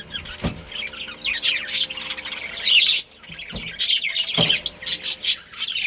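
A flock of budgerigars chirping and chattering, many calls overlapping. A sharp knock with a brief ringing tone comes about half a second in, and a second knock comes near the end.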